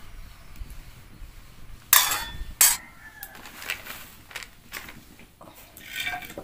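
Two sharp clanks of metal cookware, about two seconds in and again half a second later, followed by small knocks and rustling.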